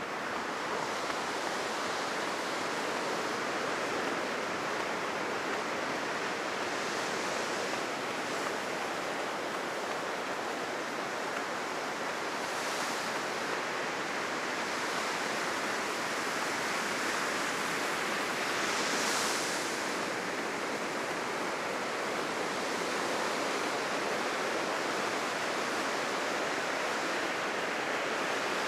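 Heavy ocean surf breaking on the shore: a steady rushing wash of waves, with louder hissing breakers about 13 and 19 seconds in. The surf is running high after a typhoon.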